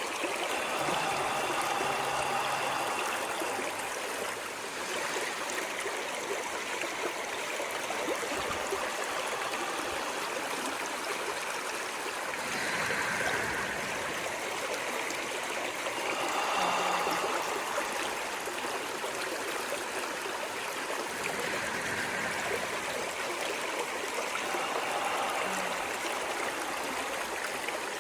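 Stream of running water, a steady rush with brief louder gurgles now and then.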